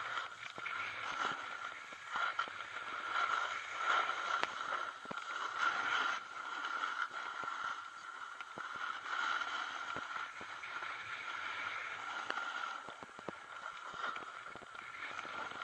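Edges scraping and hissing on packed snow during a downhill run, swelling and fading with each turn, with small clicks and knocks.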